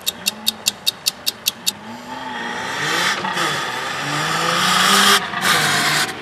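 Off-road competition buggy revving hard as it accelerates across loose sand. The engine pitch rises and falls with the throttle, over a rushing hiss of tyres throwing up sand that peaks about five seconds in, then cuts off abruptly near the end. A quick, even ticking fades out in the first two seconds.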